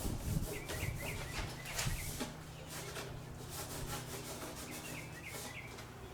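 Short, irregular rubbing strokes of hand work over the foam hinges of an RC plane, brushing in and wiping off water-based foam tack glue.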